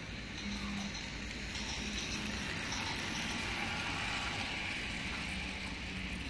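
Toy train passing close on plastic track, its wheels clattering in a rapid run of clicks. It grows louder about a second in and dies away toward the end.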